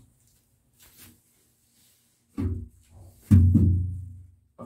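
An old ceramic washbasin being set down as it is taken off the wall: two thuds about a second apart, the second louder, its deep ring fading over about a second.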